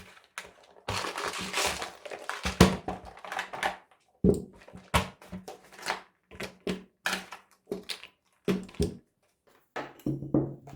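Unpacking noises as a rivet nut tool kit's case and its contents are handled. Wrapping crinkles for about a second near the start, then comes a run of irregular sharp clicks and knocks.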